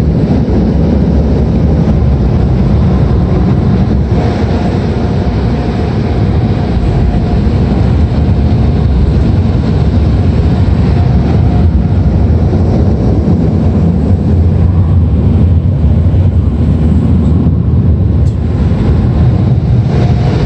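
Automatic car wash equipment running over a car, heard from inside the cabin: a loud, steady roar with most of its weight low, and a faint whine through the middle.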